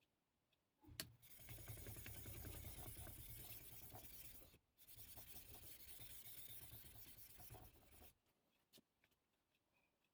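Yanagiba knife edge being run along a very coarse sharpening stone to dull it and grind out nicks: a faint, steady scraping in two long strokes of about three seconds each, with a light knock just before the first.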